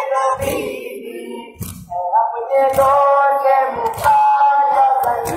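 Children's voices singing an Urdu noha together, the singing thinning out about a second in and picking up again about two seconds in. Dull thumps recur every half-second to second, typical of hands beating on chests in matam.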